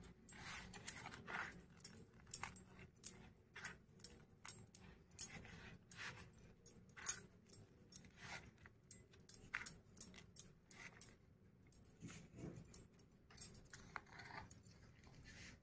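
Fingers rolling a batter-coated vegetable cutlet through biscuit crumbs on a stainless steel plate: faint, irregular scratchy ticks and clinks of crumbs and fingertips against the steel, several a second.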